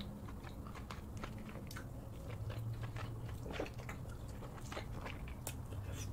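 Close-miked eating of crab meat dipped in cheese sauce: biting and chewing, with many short mouth clicks and smacks over a low steady hum.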